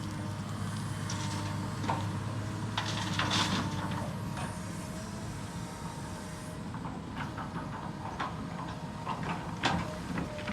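Excavator engine running steadily with a constant hum, overlaid by scattered sharp knocks and clanks, a cluster of them about a third of the way in and a loud one near the end.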